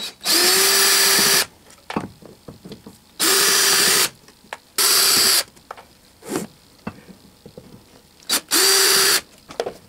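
Cordless drill-driver spinning loosened screws out of the back plate of a three-jaw lathe chuck, in four short runs of a steady whine. Light clicks come between the runs.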